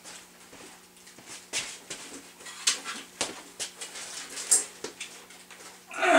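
Handling noise from lifting a drill press head-and-motor assembly: scattered light knocks, clunks and rustling, with a louder scrape and bump near the end as it is hoisted. A faint steady hum runs underneath.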